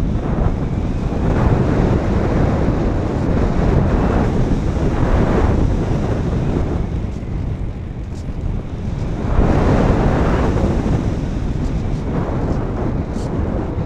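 Airflow rushing over the microphone of a GoPro mounted on a Sky Eye RC FPV plane in flight, a steady roar that swells louder a few times.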